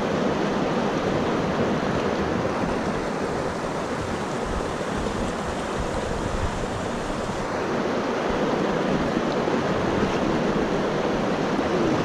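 Steady rush of a river flowing over rocks.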